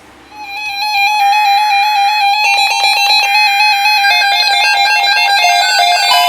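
Electronic music: fast runs of bright synthesized notes that come in sharply a moment in and then keep up a busy, stepping melody.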